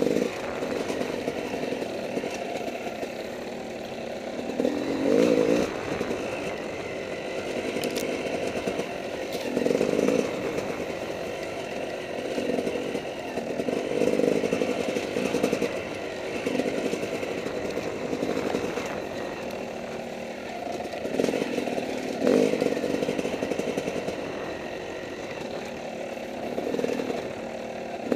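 Dirt bike engine running under the rider's throttle, heard from a head-mounted camera, swelling louder every few seconds as the throttle is opened and easing off between.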